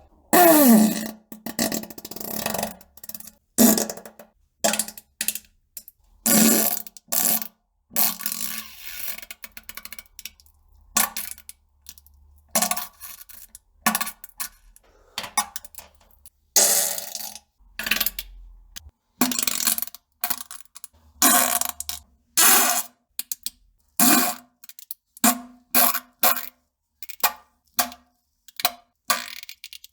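A rapid run of fart sounds: dozens of short blasts with brief gaps between them. The first, about half a second in, is a longer one falling in pitch, and the blasts get shorter and come faster toward the end.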